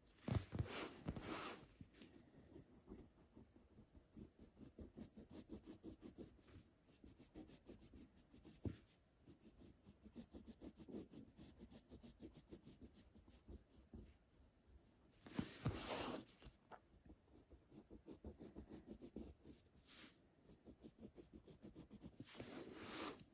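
Faint graphite pencil scratching on a sheet of paper in quick repeated strokes. Louder rustles from the sheet being slid and turned on the table come about a second in, around two-thirds of the way through, and near the end.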